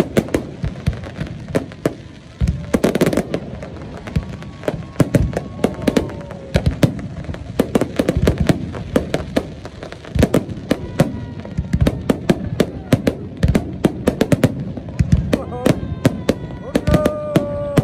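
Fireworks display: aerial shells bursting in rapid, irregular volleys of bangs and crackle, several reports a second.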